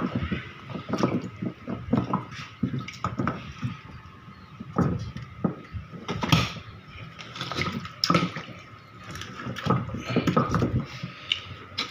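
Water splashing and dripping amid irregular knocks and clatter, over a faint steady whine.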